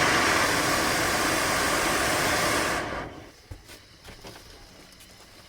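Oxy-acetylene brazing torch burning with a steady loud hiss, which dies away about three seconds in, leaving only a few faint knocks.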